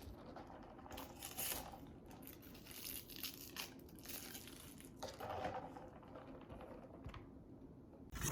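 Irregular bursts of crinkling and rustling, as something is handled at close range.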